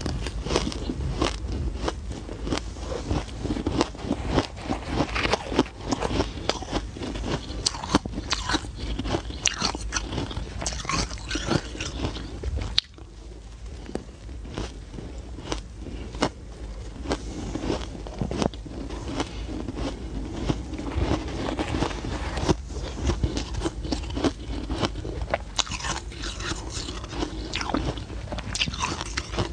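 A person biting and chewing soft, frosty ice, a dense run of crisp crunches and crackles.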